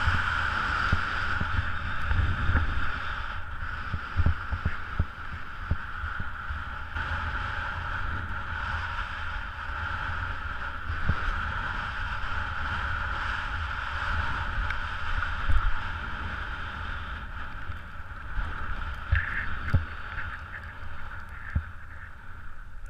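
Skis sliding over snow with a steady hiss, with irregular low thumps and wind buffeting on the action camera's microphone.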